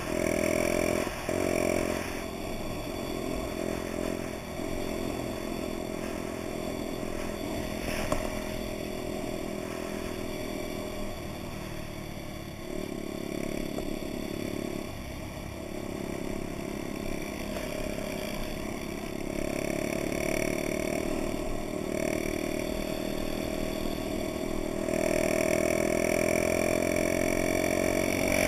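Honda Dax moped's small single-cylinder four-stroke engine running under way, its note rising and falling with the throttle and dipping briefly several times as the rider shifts or eases off. A single sharp clack about eight seconds in, and the engine runs louder near the end.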